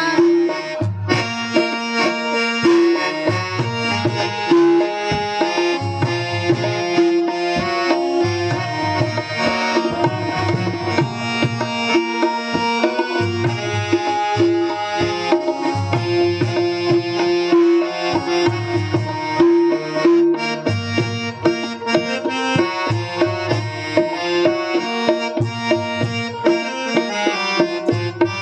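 Instrumental interlude of Indian folk-style music: a harmonium holding and playing a melody over a hand drum keeping a steady beat.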